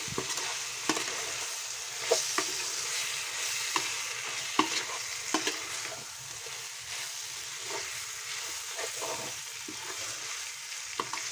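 Perforated steel spatula stirring jackfruit pieces through sizzling masala in a nonstick kadhai: a steady sizzle with irregular clicks and scrapes of metal on the pan, about one a second.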